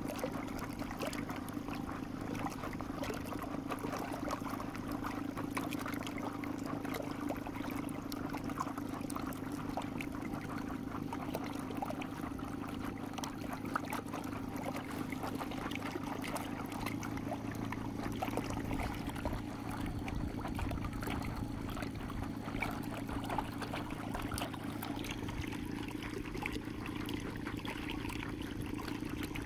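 Water trickling and splashing along the hull of a moving inflatable kayak, over the steady low hum of a Rhino Cobold VX 24 outboard motor running at constant speed; the hum's pitch shifts slightly a little past halfway.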